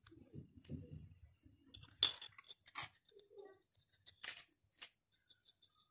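Small objects handled on a tabletop: a soft rustle of handling, then a few sharp clicks, the loudest about two seconds in and the others near three, four and five seconds in.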